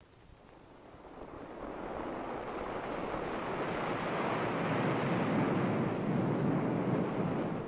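A rushing noise with no distinct tones, surf-like, swelling up over several seconds and falling away near the end.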